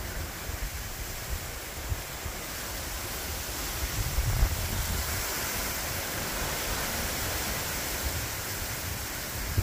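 Gusty storm wind rushing through palm fronds and trees, a steady hiss that swells about three seconds in, with low rumbling wind buffeting on the microphone.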